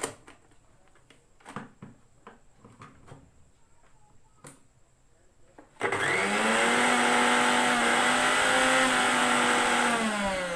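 A few light clicks and knocks, then an electric mixer grinder's motor is switched on about halfway through, its whine rising quickly to speed. It runs loud and rough for about four seconds, then is switched off and its pitch falls as it spins down. The mixer is making far too much noise, the fault this repair sets out to cure.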